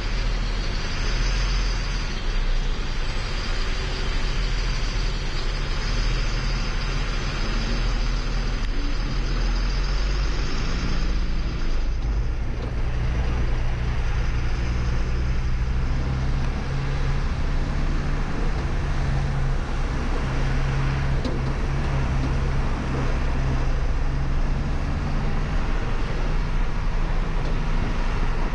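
Diesel engine of a MAN LE280B 4x4 truck running as the truck moves slowly off; the engine note changes about twelve seconds in, where a high hiss also stops.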